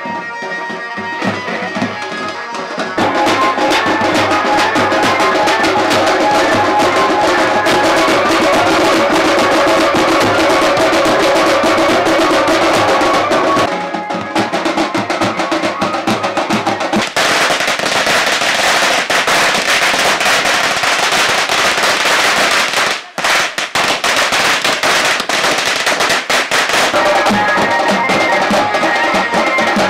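Several large barrel drums beaten hard with sticks in a fast, dense, loud rhythm.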